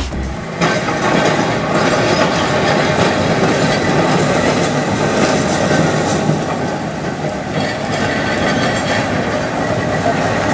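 Vintage Vienna type Z tram running past on street track, its wheels clattering over the rail joints and points of a junction as it rounds the curve.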